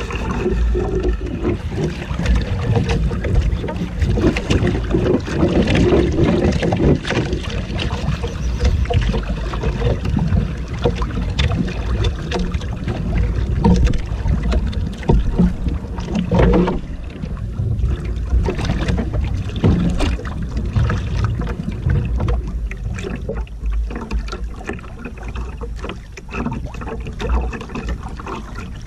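Wind buffeting the microphone and choppy sea water slapping and rushing against a small outrigger boat's hull, with many short knocks and splashes.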